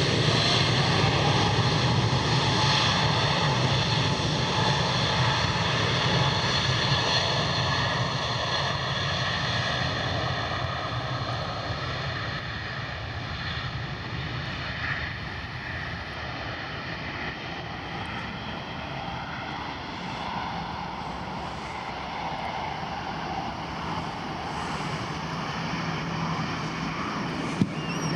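Airplane engines running with a steady whine of several tones, loudest at the start, easing off over about fifteen seconds and rising slightly again near the end. A single sharp click comes just before the end.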